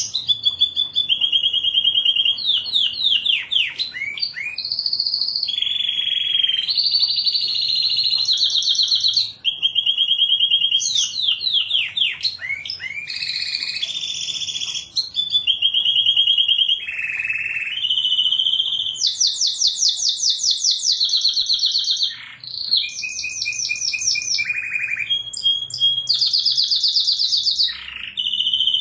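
Domestic canary singing continuously: fast trills and rolls, each run of one repeated note lasting a second or two before switching to another, some held level and some sweeping down in pitch.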